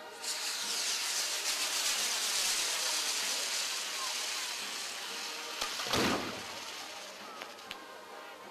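Castillo fireworks set piece burning: the lances outlining the figure give a steady loud hiss and fine crackle that starts abruptly and slowly fades. A sharp bang comes about six seconds in, with two small pops after it.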